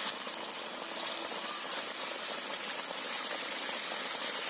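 Banana fritters in batter (pazhampori) deep-frying in hot palm oil: a steady bubbling sizzle with fine crackling as the batter crisps.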